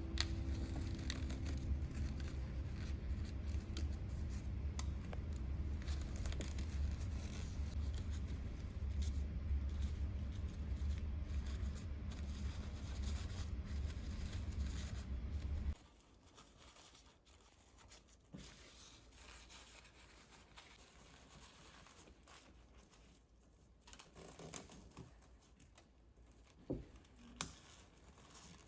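Paper being handled, cut and torn, with crinkling rustles. A steady low hum runs underneath for the first half and cuts off suddenly, leaving only faint rustles and small clicks.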